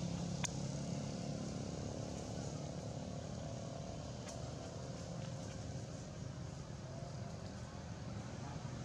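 Steady low background rumble with a faint hum, and a single sharp click about half a second in.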